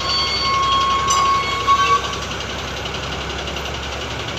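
Heavy crane engine running steadily while the crane slews, with a long high-pitched horn-like tone over it that ends about two seconds in.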